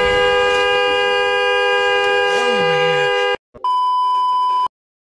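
A car horn held down, a steady two-note blare, which cuts off abruptly after about three and a half seconds. After a short gap, a steady test-tone beep plays for about a second.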